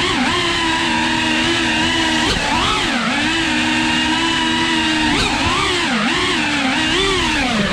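FPV drone's electric motors whining, the pitch swooping up and down quickly as the throttle changes. Twice the pitch holds nearly steady for about two seconds, two close tones sounding together.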